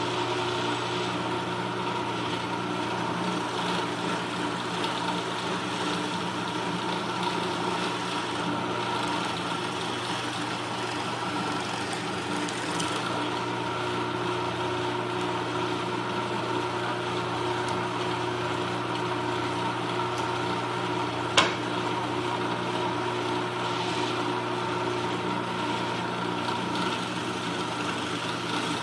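Drill press motor running with a steady hum while the bit is fed down into a wooden workpiece. One sharp click about two-thirds of the way through.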